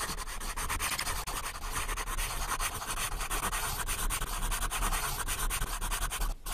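Marker pen scribbling on a whiteboard: a steady, rapid scratchy scraping of pen strokes, with a low hum underneath and a brief dip just before the end.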